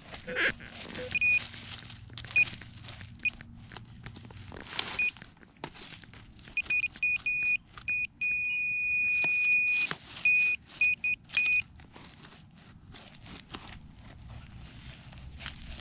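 Handheld metal-detecting pinpointer probe beeping over a target in the soil, an old aluminium milk bottle cap. A few single beeps come first, then quickening beeps, a steady tone for about a second and a half when it sits right on the metal, then quick beeps again. Soil and dry leaves rustle and click under the probe.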